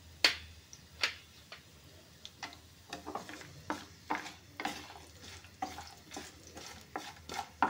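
A wooden spatula stirring and scraping cashews around a small pan of hot ghee with cumin and pepper, in repeated short strokes, over a faint sizzle of frying. Two sharp knocks come in the first second.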